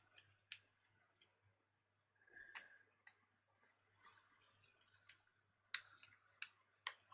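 Faint, scattered clicks and taps of a small plastic tray and tablet parts being handled and tried for fit, with three sharper clicks near the end.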